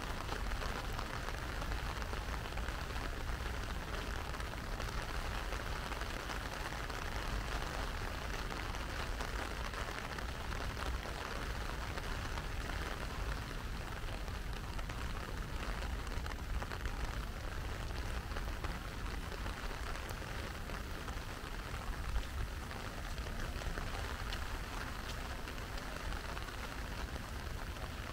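Steady rain falling, an even hiss of drops that does not let up, with a low rumble underneath.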